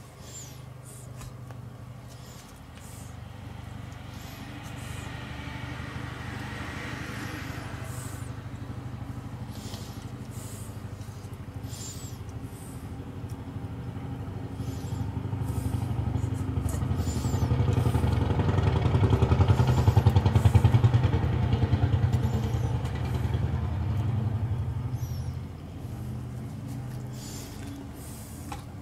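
A steady engine-like drone that swells to its loudest about two-thirds of the way through, then eases off. Light clicks and handling noise from a stainless-steel meat-injector syringe sound over it.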